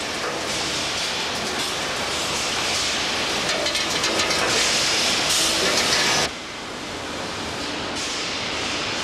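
Bottle production line noise: a steady machinery hiss with empty plastic bottles rattling and clattering along a chute and conveyor. The noise drops to a quieter level about six seconds in.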